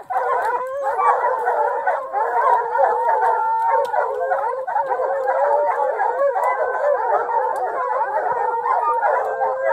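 A pack of bear hounds baying together at a treed black bear, several dogs at once with long held howls overlapping without a break: the sound of hounds holding a bear up a tree.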